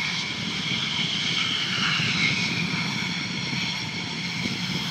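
F-16 Fighting Falcon jet engines running at takeoff power: a steady high whine over a low rumble.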